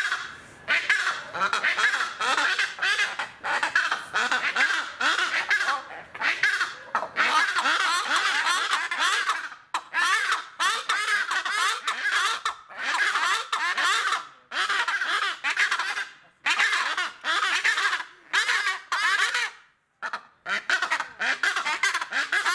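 White-bellied bustards calling together: fast chains of short, repeated croaking notes from several birds at once, in bouts a second or few long with brief pauses between them.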